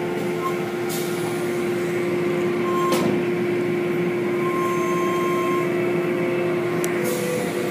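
Automatic car wash tunnel equipment running: a steady machine hum with one constant tone and the hiss of spraying water. Three sharp knocks come about one, three and seven seconds in.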